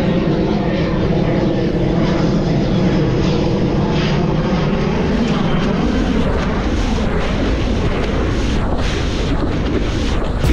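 Wind rumbling on an action camera's microphone while wing foiling, with a steady droning hum of several tones that eases off about halfway through.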